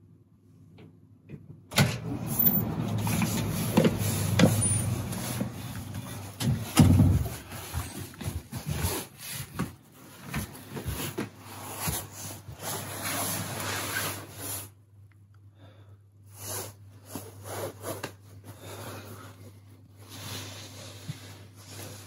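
Handling noise from a phone camera being carried and moved about: rustling, scraping and several sharp knocks, loudest in the first half, then sparser rustling. A low steady hum runs underneath.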